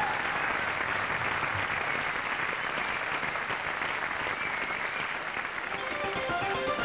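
Large studio audience applauding and cheering in a continuous wash of clapping, with a brief whistle. Music with guitar fades in near the end.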